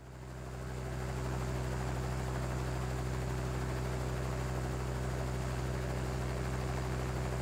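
A steady, deep engine drone with a constant low hum, fading in over the first second and then holding even.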